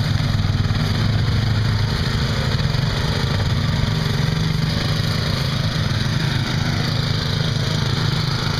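Riding lawn mower engine running steadily at a constant speed, with no revving.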